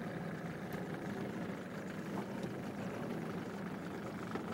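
Outboard motor running steadily at low speed, an even low hum.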